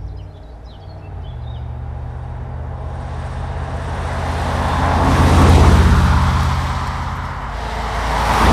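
Audi RS5's 4.2-litre V8 running at a steady engine speed as the car approaches and drives past, growing louder to a peak about halfway through along with tyre noise. The sound dips, then swells again near the end.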